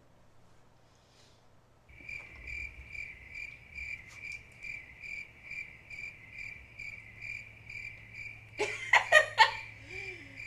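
Cricket chirping, a steady high chirp repeating about three times a second, starting about two seconds in. Near the end a few loud, sharp bursts sound over it.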